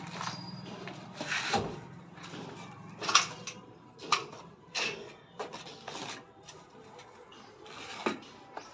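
Small trowel scraping through a loose sand bed on a concrete base: a series of short, irregular scrapes and knocks, the loudest about three seconds in.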